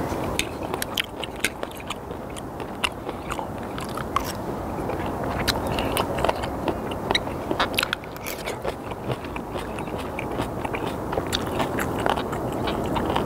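A person chewing sliced raw skate and kimchi close to the microphone: many short, wet clicks and crunches.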